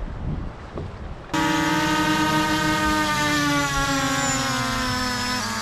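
A loud, sustained horn-like tone starts abruptly about a second in, slides slowly down in pitch for about four seconds, and cuts off suddenly.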